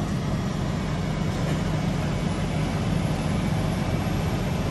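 Engines of parked utility bucket trucks and a crane truck running steadily, a continuous low hum.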